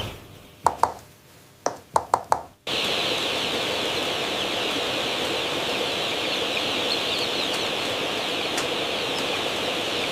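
Dense chorus of many chicks peeping. It drops away for the first couple of seconds, where about six short single calls stand out, then cuts back in abruptly and carries on steadily.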